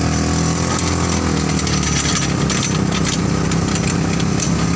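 ATV engine running steadily under way, a continuous buzzing drone whose pitch dips slightly about a second in.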